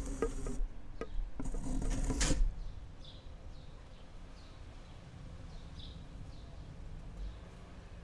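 Tropical forest ambience: two loud buzzing bursts in the first two and a half seconds, then a quieter forest backdrop with short high chirps repeating about once a second.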